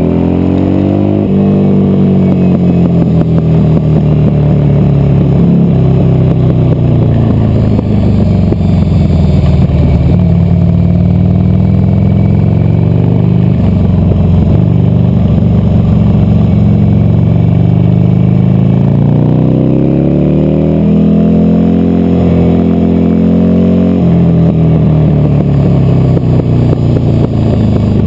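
Buell XB12Scg's air-cooled V-twin engine running hard on track, its pitch climbing and falling several times as the bike accelerates and slows, with sudden drops in pitch at gear changes.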